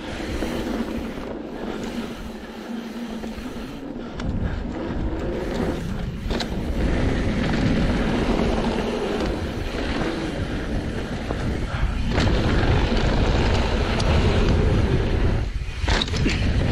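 Mountain bike descending a dirt trail: wind buffeting the microphone and tyres rumbling over the ground, getting louder from about four seconds in, with a few sharp knocks and rattles from bumps.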